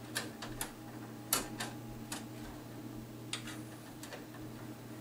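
Irregular light clicks and ticks as a bare copper ground wire is handled and worked into place against a breaker panel's terminal bar and metal enclosure, the loudest about a second and a half in, over a steady low hum.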